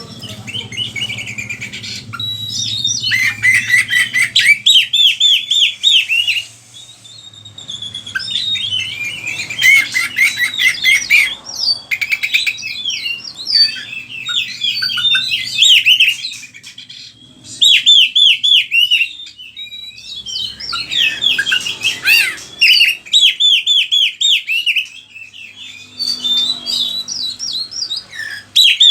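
Oriental magpie-robin (kacer) singing in full voice: a long, varied song of rapid repeated sweeping whistles and trills, in phrases broken by short pauses.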